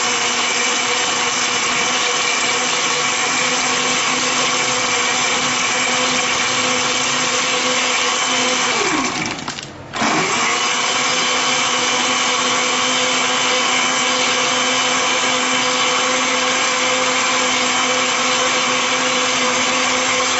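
Electric countertop blender running steadily as it blends mango lassi made with mango, yogurt, milk and ice. About nine seconds in, the motor is switched off and winds down in pitch. A second later it starts again and runs on.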